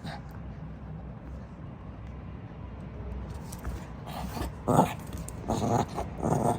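A Shih Tzu making three short vocal sounds in the second half, over a steady low rumble.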